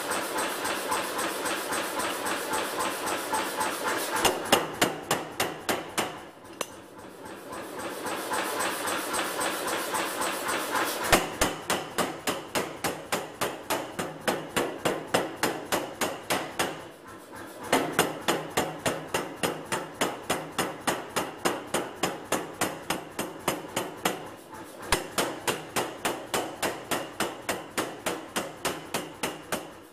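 Power hammer striking hot steel as a blacksmith's tong is forged on a tong-making die. The blows come in rapid, even runs of about three to four a second, with a few short pauses between runs.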